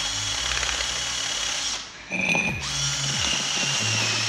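Cordless power drill run in repeated bursts against a van's wheel hub. Its motor stops briefly about two seconds in and starts again, and the pitch falls each time the trigger is released.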